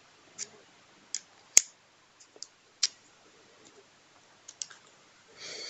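Small sharp clicks of steel screwdriver bits being pulled off the magnetic shaft and set into the plastic bit holder: about half a dozen spaced irregularly, the loudest about a second and a half in.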